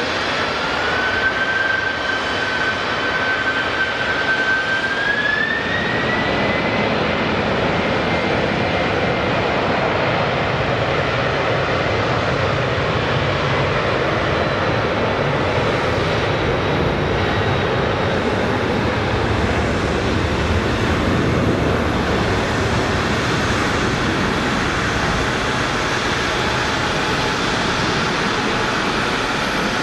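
Boeing 767 jet engines running, a steady jet noise with a whine that climbs in pitch in two steps over the first several seconds and then holds, while a low rumble builds in from about six seconds in.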